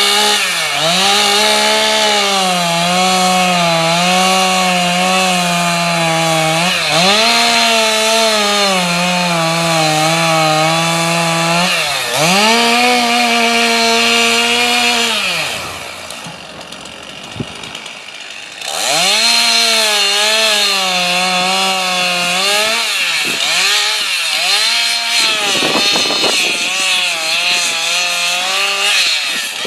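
Chainsaw cutting into a wood block, its engine pitch rising and sagging again and again as the bar bites. The saw is eased off to a quieter idle for about three seconds past the middle, then revved up and cutting again.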